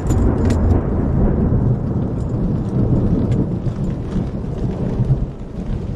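Thunder rumbling on for several seconds over falling rain; the rumble comes in sharply at the start and stays loud throughout.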